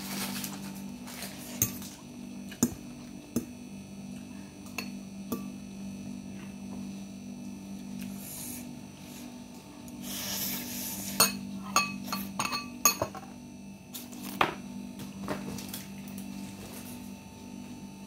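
A metal fork scraping and clinking against a plate while instant noodles are eaten, in scattered sharp clicks with a quick cluster past the middle. A slurp of noodles comes about ten seconds in, over a steady electrical hum.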